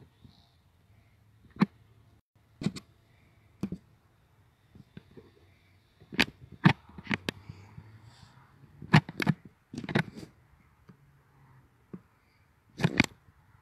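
About a dozen sharp clicks and taps at irregular times, some single and some in quick pairs. They are handling noise from the pilot's hands working the drone's remote controller and phone while switching flight modes.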